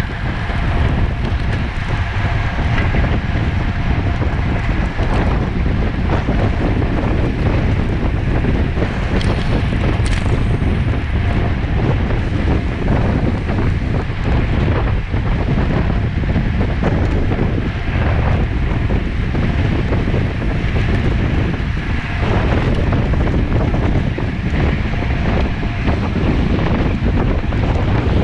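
Steady wind buffeting the microphone, a loud low rumble, with small clicks and knocks now and then.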